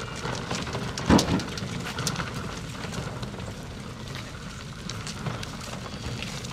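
Wheelbarrow and wagon wheels and footsteps crunching over a dirt and gravel path, a steady crackle of small clicks. There is one louder thump about a second in.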